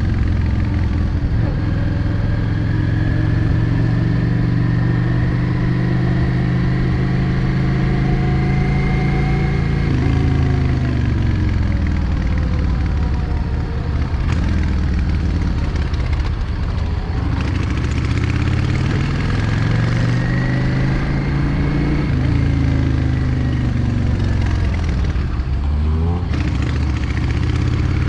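Yamaha XVS 650 Drag Star's air-cooled V-twin engine running on the road. The note holds steady for about ten seconds, then falls and rises several times as the bike slows and picks up speed through curves.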